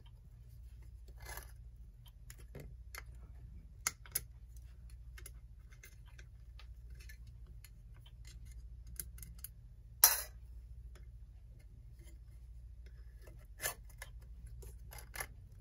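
Scattered small metallic clicks and scrapes of a tool working at the metal back plate of a 1930s Hammond Tripoli electric clock as it is pried at, with one sharper click about ten seconds in.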